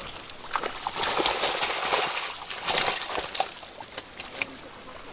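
Water splashing and sloshing in irregular bursts, heaviest between about one and three seconds in.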